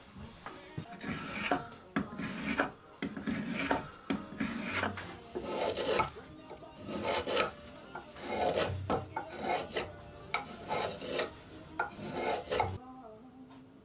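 Steel spokeshave shaving the handle of a beech spoon, a quick series of short cutting strokes along the wood that stops about a second before the end.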